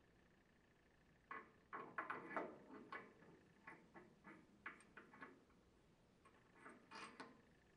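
Faint clicks and light knocks of a metal seal holder being handled and fitted over a gear pump's shaft against its bracket. They come in a cluster about a second and a half in, then as a few scattered ticks.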